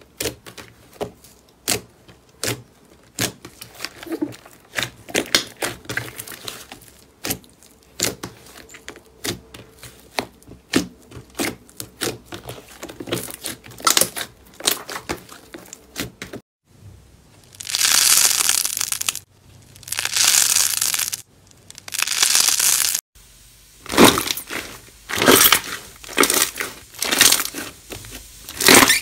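Hands pressing and kneading glossy slime, giving a quick run of sharp squelching clicks and pops, several a second. About two-thirds through come three long crackling, hissing stretches of about a second and a half each, then louder crunchy squishes as a thicker, textured slime is pressed in a bowl.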